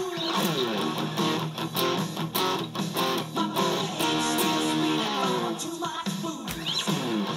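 Electric guitar, a Fender Stratocaster, played with a pick in a rock part, with notes sliding down in pitch shortly after the start and again near the end.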